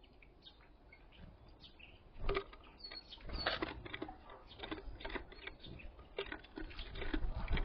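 Small birds at a window feeder pecking and scrabbling at seed: a busy, irregular run of light taps and clicks, with a few brief high chirps and an occasional heavier knock.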